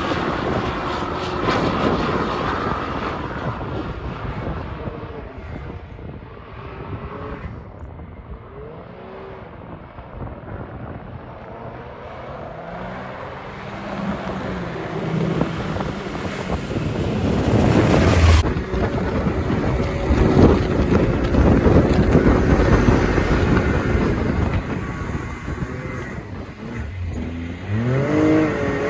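Can-Am Maverick X3 Turbo R side-by-side's turbocharged three-cylinder engine running under load while the machine is driven, its pitch rising and falling with the throttle. It fades in the middle and swells loud again in the second half, with wind noise over it.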